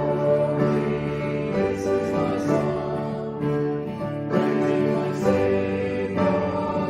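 Hymn music: sustained instrumental accompaniment with singing, the notes changing about once a second.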